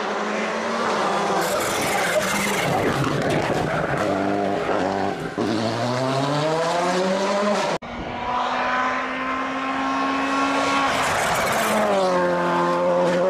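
VW Polo GTI R5 rally car's turbocharged four-cylinder engine driven hard, its note climbing and dropping with gear changes and lifts off the throttle. The sound cuts off abruptly about eight seconds in and comes straight back.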